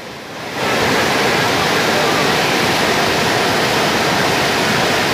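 Torrent of storm floodwater rushing through a flooded channel, a steady loud rush of water that comes in sharply about half a second in.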